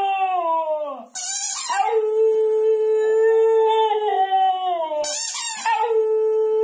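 Dog howling in long held notes, each sliding down in pitch at its end, with a short high-pitched squeal about a second in and again about five seconds in.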